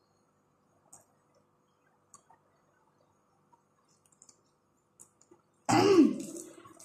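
Faint scattered clicks of someone eating with their hands. Near the end comes a sudden loud noisy burst that fades over about a second.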